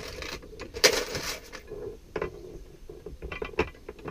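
Hand tools and odds and ends on a cluttered workbench being moved and rummaged through: scattered knocks and clatters, with a rustling scrape about a second in.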